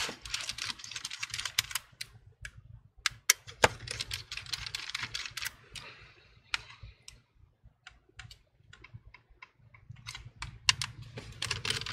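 Precision screwdriver backing small screws out of a laptop motherboard: light metallic clicks and scraping of the driver tip in the screw heads, with a run of separate sharp ticks in the middle.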